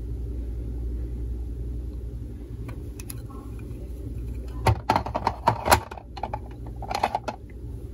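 Hard plastic coin slabs clicking and clattering against each other as they are handled, in a cluster of sharp knocks through the second half, over a steady low rumble.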